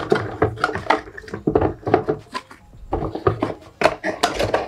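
Cardboard retail box handled and opened by hand: an irregular run of knocks, taps and scrapes of cardboard against cardboard and the table.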